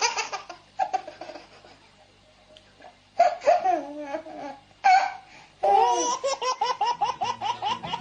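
A baby laughing in short bursts, with a lull a couple of seconds in, then a long run of quick, repeated laughs from about two-thirds of the way through.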